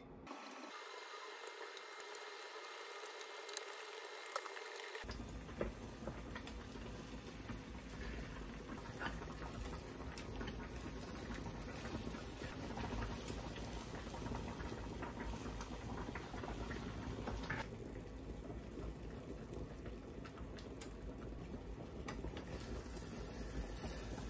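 Beaten egg sizzling in an oiled frying pan as a rolled omelette cooks, with small clicks and scrapes of wooden chopsticks and a wooden spatula against the pan. The sizzle grows fuller about five seconds in.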